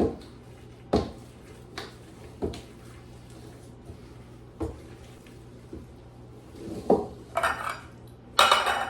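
Kitchen utensil knocking and scraping against a mixing bowl while muffin batter is scooped out: several separate clinks a second or so apart, then busier scraping near the end.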